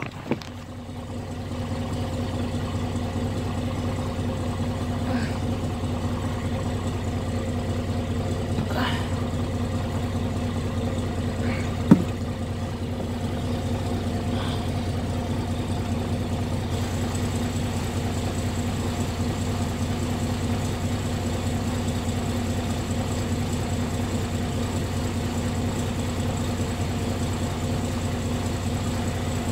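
An engine idling steadily, with one sharp clank about twelve seconds in.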